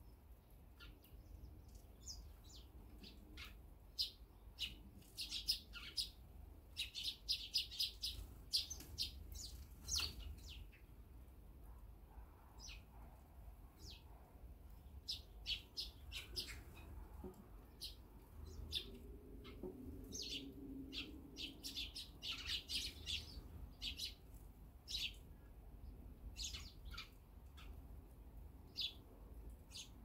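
Eurasian tree sparrows chirping: many short, high chirps, some single and some in quick runs, with two busy flurries, one in the first third and one past the middle.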